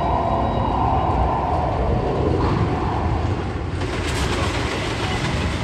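Steady rumble and clatter of a train running on rails, growing a brighter rattle about four seconds in.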